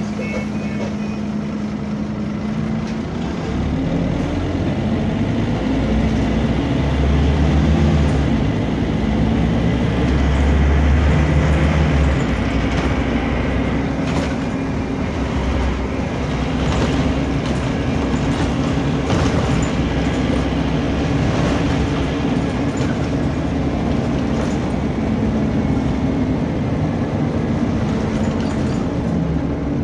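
Scania bus's engine and radiator cooling fan running, heard from inside the cabin: a steady drone whose hum steps up in pitch about three seconds in, with a heavy low rumble that builds for several seconds and light rattles later on.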